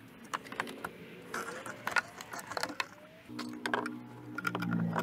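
Light clicks, taps and rattles of hose clamps, fittings and plastic intake parts being worked loose under the hood. Background music of steady held notes comes in a little past halfway.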